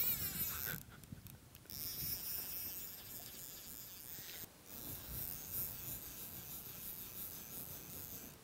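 Steady high-pitched insect buzzing over a rushing hiss and a low rumble. It cuts out briefly about a second in and again around the middle.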